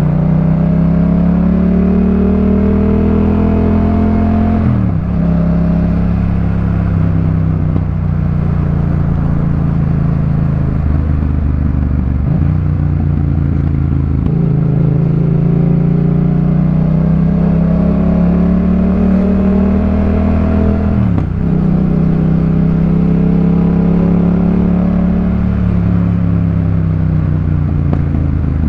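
2018 Yamaha MT-07's 689 cc parallel-twin engine through a Jeskap K4 full exhaust with a sport air filter, pulling under way. The engine note climbs steadily, broken by quick gear changes about five seconds in and again about twenty-one seconds in, and eases off near the end.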